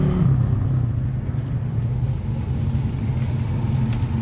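Motor vehicle engine running close by in street traffic: a steady low hum whose pitch drops just after the start and then holds.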